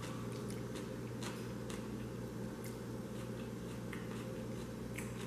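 A person chewing crisp pickled beets, faint scattered crunches over a steady low hum.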